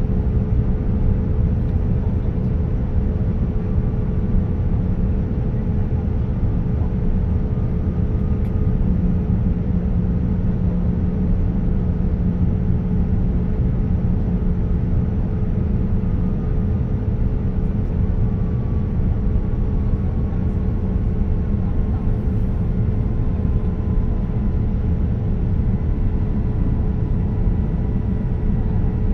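Steady cabin noise inside a Boeing 787-9 on approach: the low rush of airflow and engines, with a steady hum and a faint tone that slowly falls in pitch.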